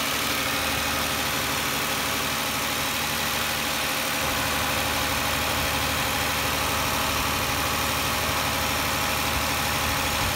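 Infiniti I30's V6 engine idling steadily while Sea Foam Spray is being drawn into its intake through a vacuum line.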